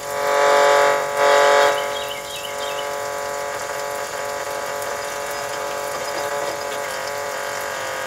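Boombox radio sitting in a running dishwasher's spray, giving off a steady electrical buzz made of several tones, with the hiss of water spray underneath. Two loud surges of noise come in the first two seconds as its controls are turned, and a short warbling squeal follows around two seconds in.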